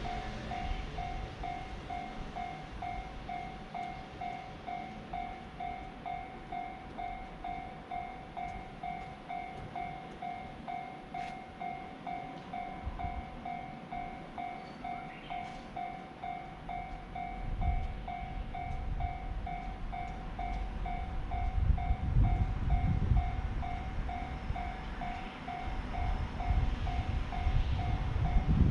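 Japanese railroad crossing warning bell ringing in an even, steady ding-ding at about one and a half strikes a second. A train approaches and runs past about halfway through, its low rumble growing loudest in the last third.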